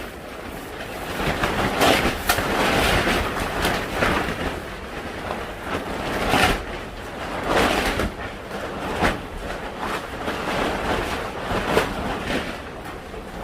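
Strong wind gusting over the microphone on a boat, a rushing noise that swells and buffets in uneven gusts every second or two.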